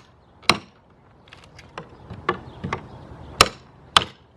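A pry bar striking and prying at wood and sheet-metal pieces glued to a metal garage door, testing whether the adhesive will let go. It lands as a series of sharp knocks spaced irregularly, with the two loudest near the end.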